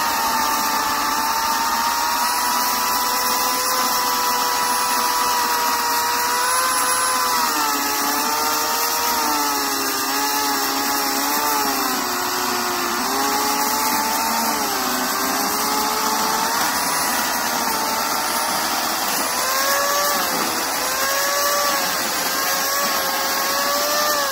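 Homelite 12-amp corded electric chainsaw with a 16-inch bar, running steadily as it cuts through a log of about 12 inches. Its motor whine drops in pitch as the motor bogs under load in the middle of the cut, then rises again toward the end.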